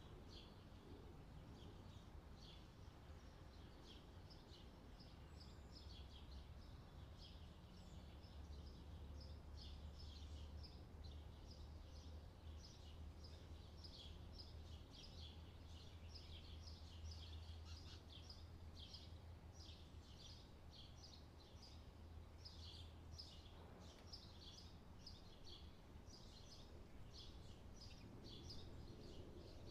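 Faint chirping of small birds, many short high chirps in quick succession, over a low steady hum.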